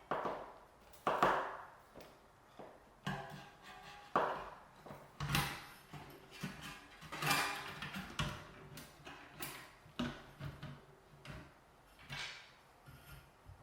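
Hands assembling computer parts: irregular clicks, taps and short scraping and rustling handling noises.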